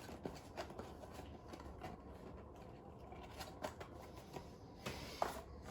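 Faint handling noises: scattered light clicks and taps, one a little sharper about five seconds in, over a low steady room background.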